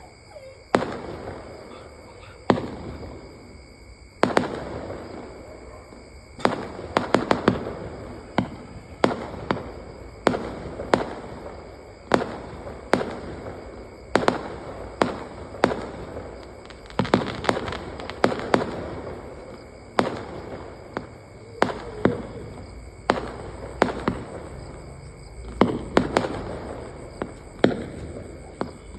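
Firecrackers going off in a long irregular run of sharp bangs, sometimes two or three in quick succession, each trailing off in a short echoing tail.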